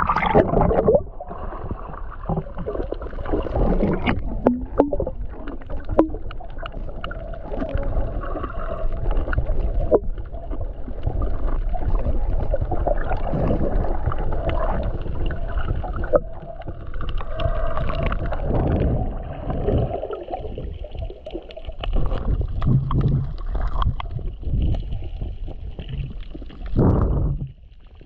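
Water sloshing and a muffled underwater rumble picked up by a GoPro camera held at and below the sea surface while snorkelling, with scattered knocks against the housing. The sound drops off sharply near the end.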